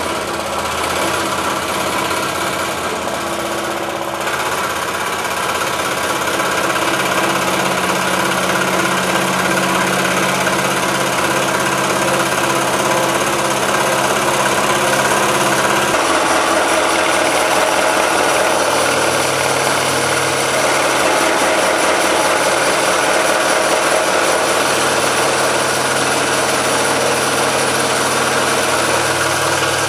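DeWalt scroll saw running steadily, its reciprocating blade cutting through a taped stack of maple boards. The tone shifts slightly about halfway through.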